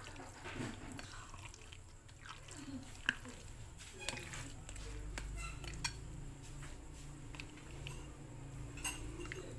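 A plastic spatula stirring a thick, wet mix of cooked sago pearls and gelatin cubes in a glass bowl, with a few sharp clicks as it knocks the glass.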